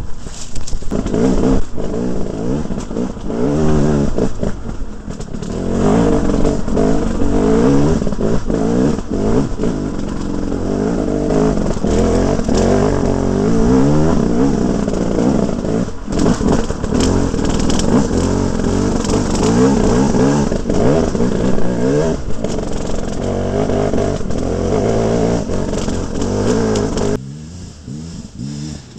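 2011 KTM 300 single-cylinder two-stroke enduro engine revving over and over, its pitch rising and falling with the throttle. The engine sound drops off noticeably near the end.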